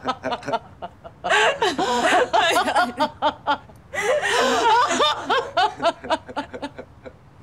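Two women laughing hard together, in two long fits: one about a second in and another about four seconds in, with a short lull between.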